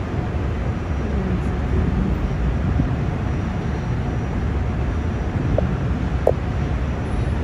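Steady low rumble of vehicle engines, with a short high squeak about six seconds in.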